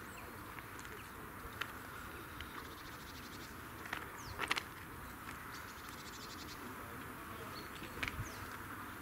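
Small birds chirping: scattered short, high, downward-sweeping calls, the loudest about halfway through and again near the end, with a couple of fast, high trills about a third and two thirds of the way in, over a steady background hiss.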